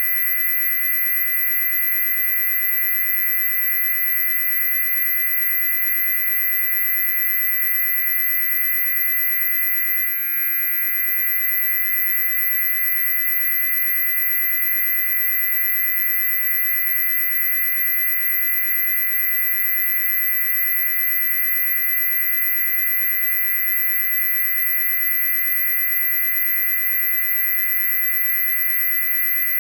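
A loud, steady, very high-pitched electronic tone held without change, with weaker steady tones lower down beneath it: a synthetic shrill test-tone-like noise.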